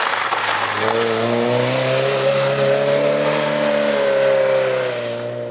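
Mk1 Volkswagen Golf rally car's engine pulling hard out of a loose-gravel hairpin, its note climbing steadily as it accelerates away, then fading near the end.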